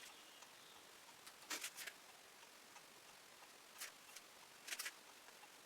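Near silence, with a few faint, brief clicks and taps from handling painting tools and paint supplies: a pair about one and a half seconds in, one near four seconds and a quick cluster near five seconds.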